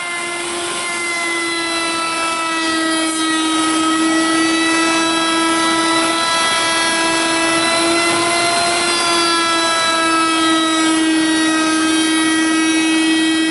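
Large 3.5-horsepower table-mounted router running with a crown molding bit, a steady high whine over a hiss. It builds in loudness over the first few seconds, then holds while a board is fed past the bit for a shallow first pass.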